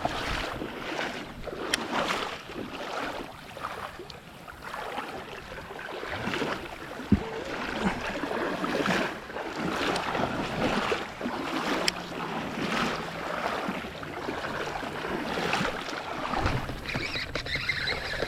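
River water splashing and rushing with uneven bursts, with wind buffeting the microphone.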